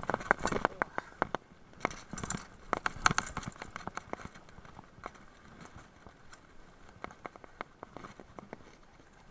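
Mountain bike riding over a rocky trail: a rapid, irregular clatter of knocks as the tyres and frame strike loose stones. It is dense and loud for the first few seconds, then thins to scattered knocks.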